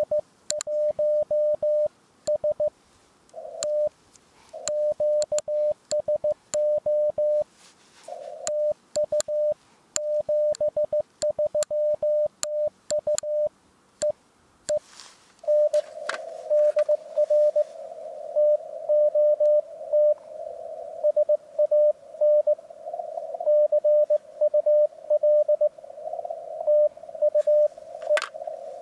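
Morse code on an amateur radio transceiver, a keyed tone at about 600 Hz. For the first half it is the clean sidetone of the operator's own sending, with sharp clicks from the key along with the keying. From about halfway it changes to a received CW signal in a narrow filter, the tone with a band of hiss around it.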